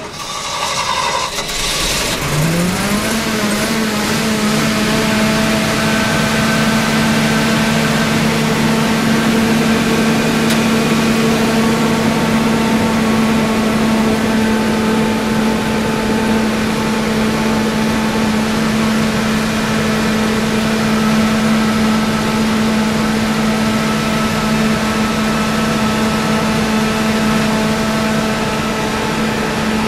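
Onan 60 kW generator set's Ford gasoline engine starting. Its pitch rises quickly about two seconds in, then it settles into a steady, even run at constant speed.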